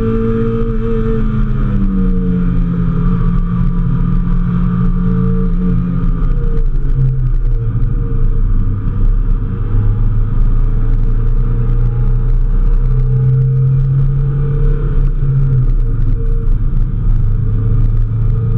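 Mazda Miata's four-cylinder engine heard from inside the cabin at speed on track: its note falls gradually over the first several seconds, drops lower about six seconds in, then holds a steady lower drone with a brief rise near the middle, over steady road and wind rumble.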